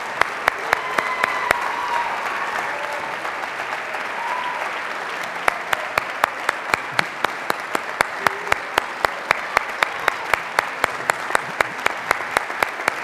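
Audience applauding, with one pair of hands clapping sharply close by at a steady pace of about three claps a second, pausing for a few seconds in the first half. A few voices call out in the first seconds.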